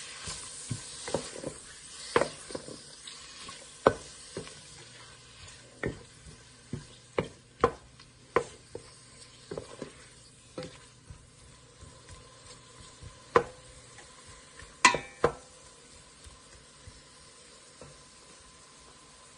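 Wooden spoon stirring squid rings in a stainless steel pot, with irregular knocks and scrapes of the spoon against the pot. A sizzle fades out over the first few seconds, and the loudest knock, about 15 s in, rings briefly.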